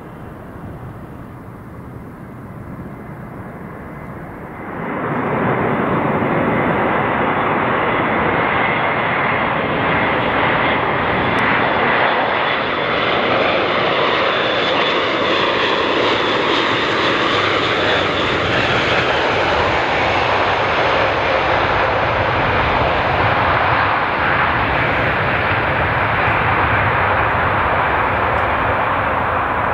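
The four Europrop TP400-D6 turboprop engines of an Airbus A400M Atlas during landing and rollout. They are quieter at first, then rise sharply in loudness about five seconds in and stay loud and steady.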